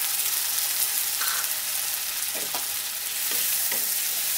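Chopped tomatoes and green chillies sizzling steadily in hot mustard oil with onions in a kadai, with a wooden spatula stirring through them in a few strokes in the second half.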